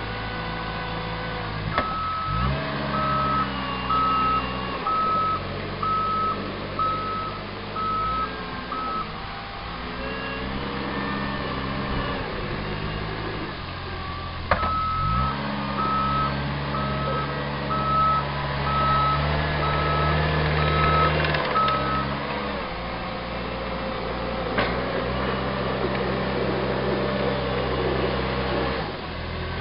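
Caterpillar 257B2 skid-steer loader's diesel engine running under load, its pitch rising and falling as the machine works. Its reversing alarm beeps about one and a half times a second in two spells while it backs up, starting again near the end.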